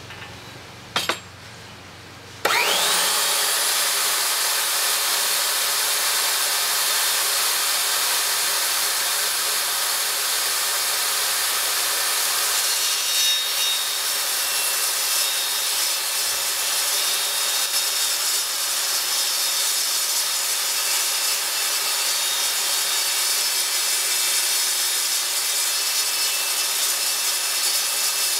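A sharp click about a second in, then a table saw motor starts and spins up to speed. It runs on loud and steady while the blade rips through plywood.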